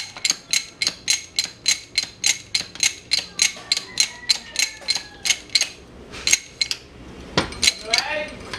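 Rapid, evenly spaced metallic clicks with a ringing tone, about four a second, growing sparser near the end, with one heavier knock about seven seconds in and faint squeaks.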